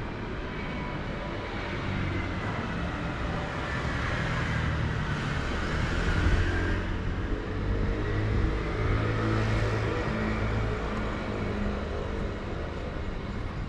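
Vehicles passing with a low engine rumble and tyre noise, swelling twice as they go by, about five and nine seconds in.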